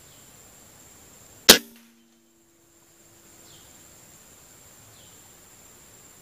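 A single sharp air-rifle shot about one and a half seconds in: the shot that hits the squirrel, which falls. It leaves a short low ring, and the recording cuts to dead silence for about a second. A steady high insect drone runs under it.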